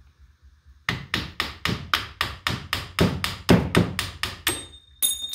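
Rapid, even knocking on a metal part, about four strikes a second for nearly four seconds, as the stuck throttle lever is forced off a Morse MV control gearbox. Near the end comes a single metallic clink with a high ringing tone.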